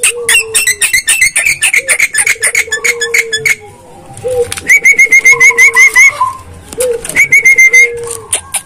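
Javan myna calling: a fast run of harsh clicking, chattering notes, then two bursts of quick, evenly repeated whistled notes, with a low held note sounding again and again underneath.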